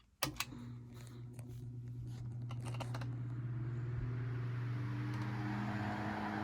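Vintage GE PG10 10-inch electric fan switched on after years unused: a steady motor hum with a few clicks at first, then rushing air that grows and a slowly rising tone as the blades spin up to speed.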